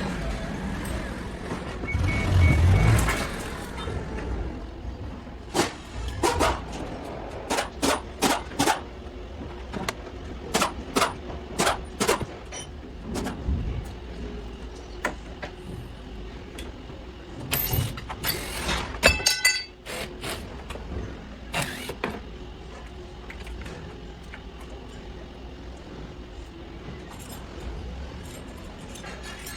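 Irregular sharp metallic knocks and clanks of tools and parts being worked during car disassembly, most dense from about five to twenty-two seconds in. A low rumble near the start.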